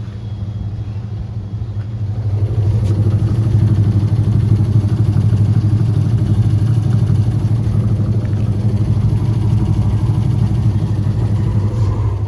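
Whirlpool top-load washing machine running, a steady low motor hum that builds up over the first couple of seconds and then holds.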